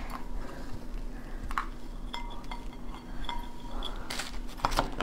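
Cooked crab being pulled apart by hand: the shell cracking and snapping in a few sharp clicks, the loudest cluster about four seconds in.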